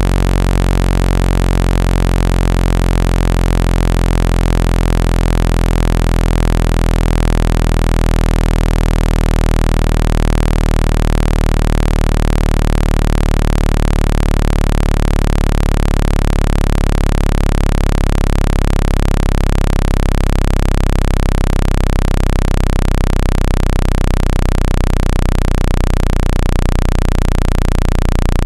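Loud, steady, low-pitched synthetic buzzing tone with many overtones, a speaker-cleaning sound meant to vibrate trapped water out of a phone speaker. Near the end its lowest notes begin to pulse rapidly.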